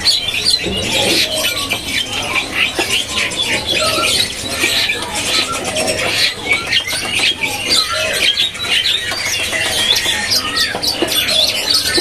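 Long-tailed shrike singing its full song: a fast, dense, unbroken stream of high chirps and trills that copies other birds, such as canary phrases.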